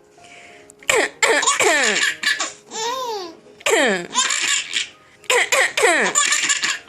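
Baby laughing hard in several high-pitched bursts, the pitch of each peal falling away, with the longest, most rapid bout near the end. The laughter is set off by someone's coughing.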